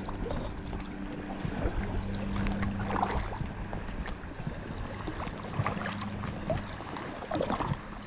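Water sloshing and splashing around a kayak on open water, with scattered short splashes of paddle strokes and a faint low steady hum underneath.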